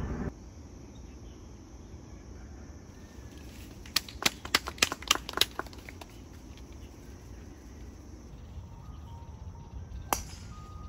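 A quick run of about eight sharp snaps in a second and a half, then, near the end, the single sharp crack of a golf driver striking a teed ball.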